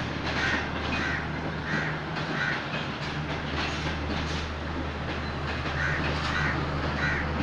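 A train running past on the rails: a steady low hum under a wash of running noise, with short clatters recurring about every half second.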